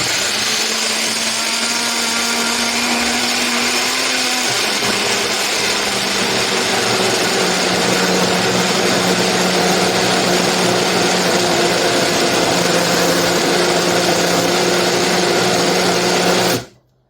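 Breville Blend Active 350 W personal blender's motor running, starting suddenly and cutting off after about sixteen and a half seconds. Its steady hum drops a little in pitch after about four seconds.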